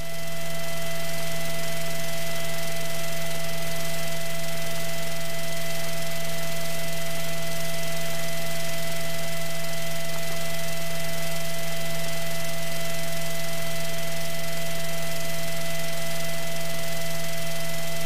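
Steady drone and hiss with a few fixed whining tones: the Piper Archer III's engine and cabin noise in cruise, heard through the headset intercom audio feed.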